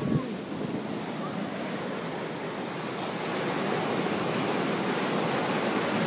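Ocean surf breaking and foamy water rushing up the beach, a steady rush that swells a little louder in the second half.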